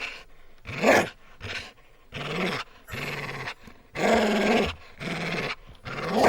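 A dog vocalizing: about seven short calls in a row, each lasting a second or less, with short gaps between them.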